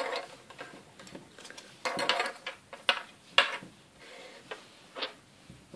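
Small hard plastic Playmobil parts being handled and set down on a tabletop: a series of short clicks and knocks, with a quick cluster about two seconds in.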